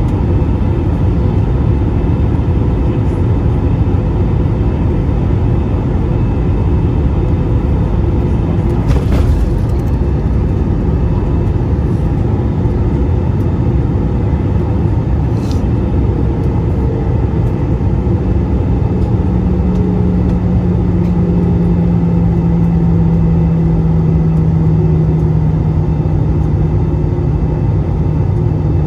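Steady roar inside an Airbus A320's cabin in flight, made by its CFM56-5B engines and the air rushing past the fuselage. About two-thirds of the way through, a low hum comes in and slowly sinks in pitch.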